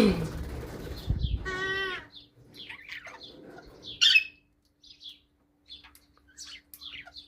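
Parrot wings flapping in a sudden burst lasting about two seconds, with a short pitched call near its end, followed by scattered short chirps from the parrots.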